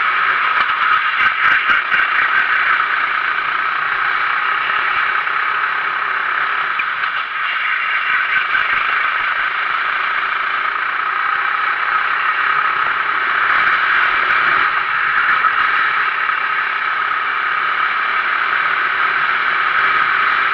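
Sodi RT8 rental kart's 390cc four-stroke engine running at racing speed, picked up by an onboard camera mounted on the kart.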